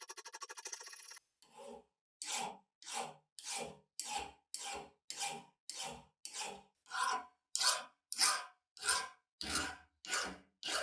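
Repeated hand rasping strokes on the metal of a rusty pipe wrench, a little under two strokes a second, each one short and scratchy. Music plays for the first second.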